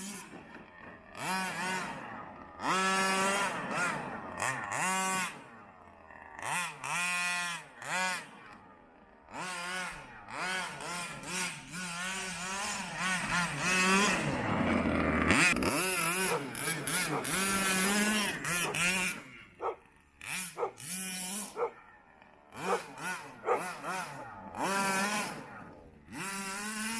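Two-stroke gas engine of a 1/5-scale Rovan BM5 RC monster truck revving in repeated throttle bursts, each one rising and falling in pitch, with a longer stretch of high revs about halfway through.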